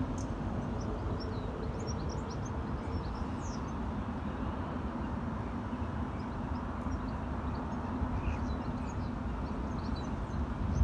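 Outdoor park ambience: a steady low rumble with small birds chirping in short high notes over it, busiest in the first few seconds. A faint steady hum underneath fades out about two seconds in.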